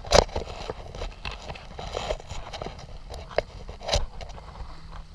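Footsteps on sand: an uneven run of walking steps with a few sharper knocks, the loudest right at the start.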